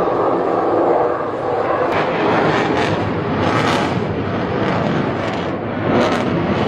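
Jet engine noise from a Sukhoi Su-57 fighter, loud and continuous, with a few short hissing swells about two, three and four seconds in and again near the end.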